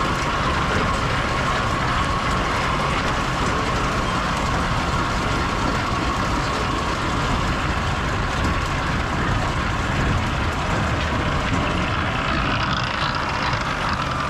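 Tractor pulling a Rotoveyor root and rock picker across the ground, its engine and rotating tumblers running steadily together as roots and dirt are lifted up the wire screen.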